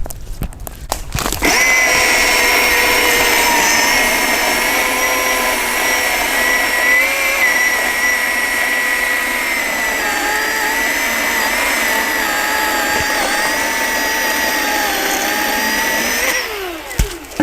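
Milwaukee M18 FCHSC cordless battery chainsaw running with a steady electric motor whine. It starts about a second and a half in, holds a near-constant speed with slight dips for about fifteen seconds, then winds down with a falling whine near the end.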